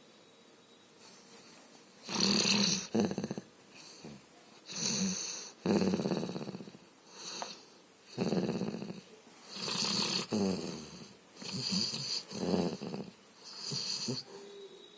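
Sleeping dog snoring in a series of separate snores, about one every second or two, each with a rasping high edge.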